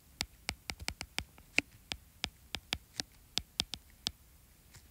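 Stylus tip tapping and clicking on an iPad's glass screen while handwriting Japanese characters: a quick, irregular run of sharp clicks, several a second.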